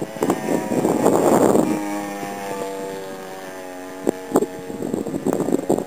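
Engine of a radio-control Stearman biplane in flight overhead, a steady drone whose pitch falls gradually over a couple of seconds. Wind rushes over the microphone about a second in, and there are scattered wind knocks.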